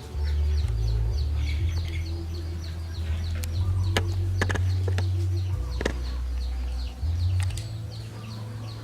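Chickens calling, with many short falling cheeps, over background music with a deep bass line. A few sharp clicks.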